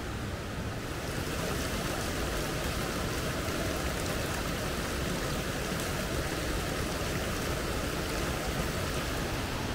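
Steady rush of flowing stream water, growing a little louder about a second in.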